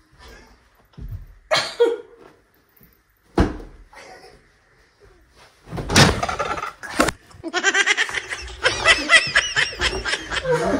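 A few separate thuds of cushions hitting people in the first few seconds, then loud, hearty laughter breaking out about six seconds in and carrying on.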